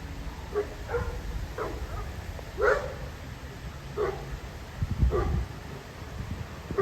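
A pet dog barking in short single barks, about seven of them at irregular intervals, the loudest near the middle. There is a brief low rumble about five seconds in.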